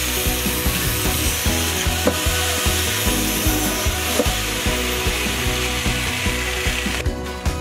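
A rasping, sawing noise of wood being worked, over background music with a steady beat; the rasping stops shortly before the end.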